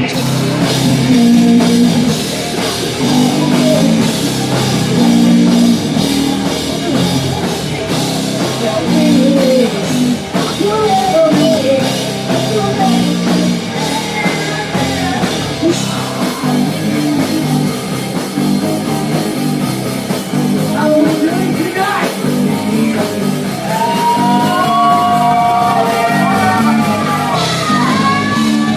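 Live rock band playing: electric guitars and drum kit under a sung vocal line, with long held sung notes near the end.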